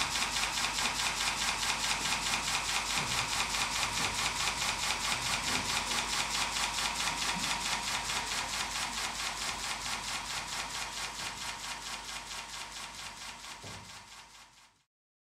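Soundtrack sound piece: a fast, even clicking pulse, about six a second, over high steady tones, fading out and stopping just before the end.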